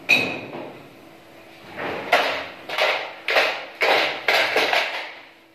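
Sheet-steel clanks from a steel almirah as its door and hinges are fitted. There is one sharp, ringing metallic clang at the start, then from about two seconds in a run of sharp knocks roughly every half second.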